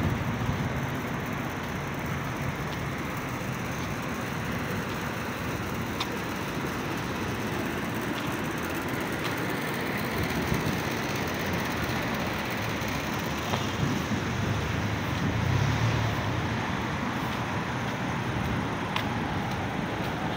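Street traffic noise: a steady hum of car engines and tyres, with one car passing more closely about fifteen seconds in.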